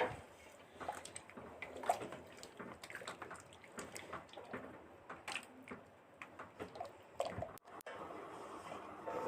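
A spoon stirring cooked rice and milk in a pot: faint sloshing of the liquid with scattered light clicks of the spoon against the pot.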